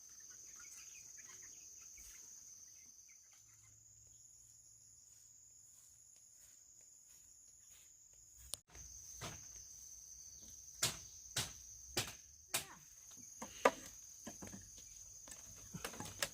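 Insects chirring steadily at a high pitch. From about halfway in, a series of sharp chopping strikes about half a second apart, a blade cutting into bamboo.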